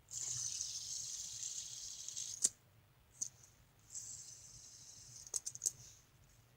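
A fidget spinner's bearing whirring with a steady high hiss, cut off by a sharp click about two and a half seconds in. About four seconds in it spins again and fades, with a few quick clicks near the end.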